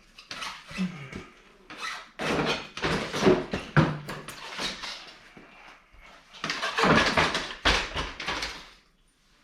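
Snowmobile rear skid frame being worked out from under the raised sled: irregular bursts of metal scraping, squeaking and knocking, with a couple of heavier clunks.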